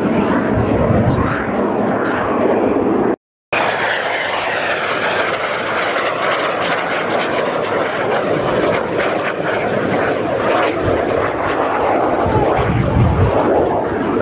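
Display aircraft flying overhead: loud, steady engine noise with a pitch that sweeps as it passes. The sound cuts out completely for a moment about three seconds in.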